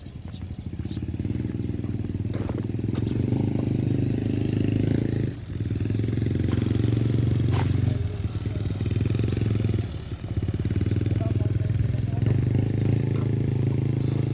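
Excavator's diesel engine running steadily, dropping off briefly twice, about five seconds and ten seconds in, with faint clanks over it.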